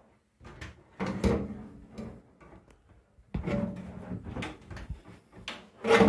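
Metal drum of a White Knight 37AW tumble dryer being manoeuvred into its sheet-metal cabinet: knocks and scrapes of metal against metal in three bouts, about half a second in, midway, and just before the end.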